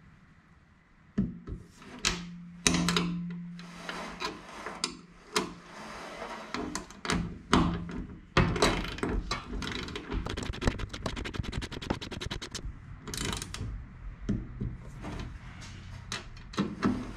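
Hand ratchet clicking in short runs as bolts are tightened into the spar, with scattered metal clinks and knocks of tools and hardware.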